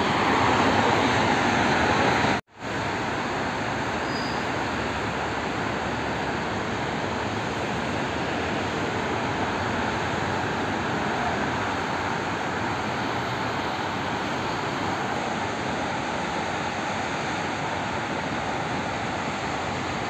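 Steady road traffic noise: an even rush with no single vehicle standing out. It drops out completely for a moment about two and a half seconds in.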